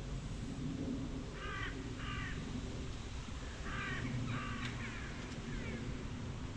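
A crow cawing four times, in two pairs of harsh calls, over a steady low rumble.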